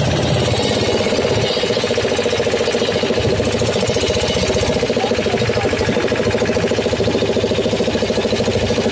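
A motorboat's engine running steadily with a rapid, even beat.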